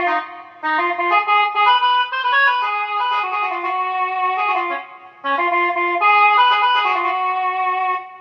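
Casio CTX-9000IN electronic keyboard playing a melody of held notes on one of its built-in tones, in three phrases with short breaks about half a second and about five seconds in.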